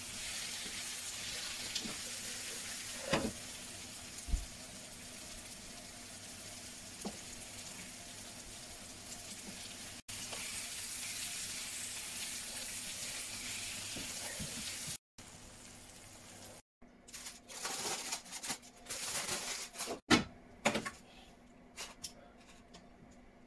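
Potatoes frying in a non-stick pan, a steady sizzle with a few clicks of a spatula against the pan. About two-thirds of the way through the sizzle stops and a run of short scrapes and sharp clinks follows as the potatoes are spooned out of the pan.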